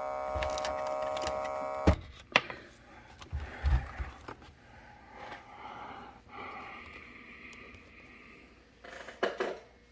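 Steady audio feedback tone from the TV speaker with the camcorder's microphone right next to it, cut off with a sharp click about two seconds in as a cable is unplugged. Then quiet cable handling and button clicks on the camcorder.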